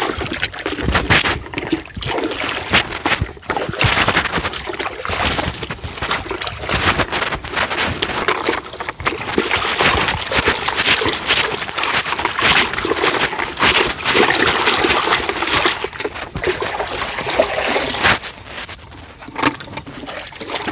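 Water splashing and sloshing unevenly, growing quieter near the end.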